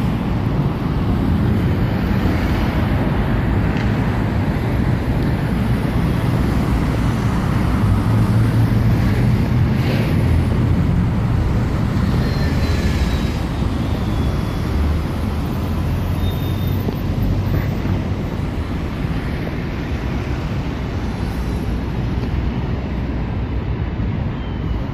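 Busy road traffic with London buses and cars running past, a steady low rumble that swells slightly midway and eases toward the end.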